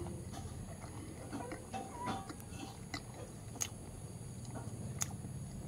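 A person chewing a mouthful of fried puri and vegetable curry, faint, with a few scattered small clicks over a low steady hum.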